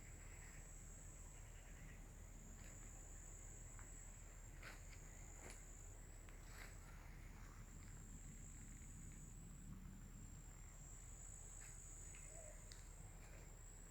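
Faint, steady high-pitched chorus of insects, with a few faint clicks.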